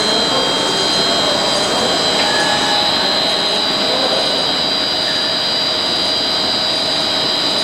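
HDPE blown film extrusion machine running: a loud, steady machine noise with a constant high-pitched whine.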